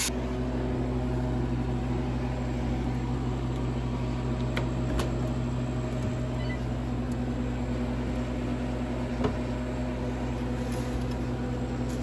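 Home freeze dryer humming steadily, with a few faint clicks.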